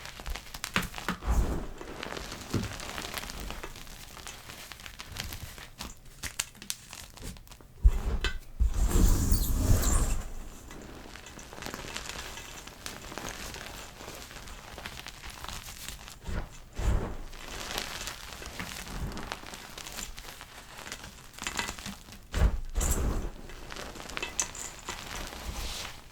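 Blocks of gym chalk being crushed and crumbled by hand close to the microphone: soft, steady crackling, with louder crunching now and then, the longest lasting about two seconds.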